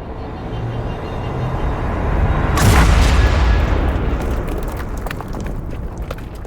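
Cinematic trailer 'rise and explosion' effect: a swelling build-up that bursts into a loud explosion about two and a half seconds in. A long low rumble follows, with scattered crackles as it dies away.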